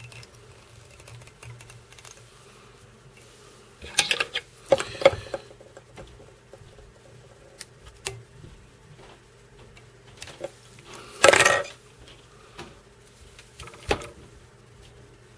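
Handling noises at a fly-tying vise: scattered clicks and brief rustles from fingers and a small metal tool working the hackle on the fly, with the loudest rustle about eleven seconds in, over a low steady hum.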